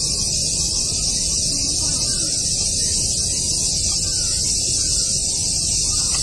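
Steady, unbroken high-pitched drone of a summer cicada chorus, with a low rumbling noise underneath.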